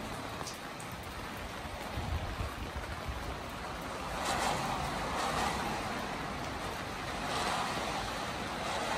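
Steady hiss of rain falling on a wet street and surrounding surfaces, swelling louder twice, in the middle and near the end, with a few low thumps about two seconds in.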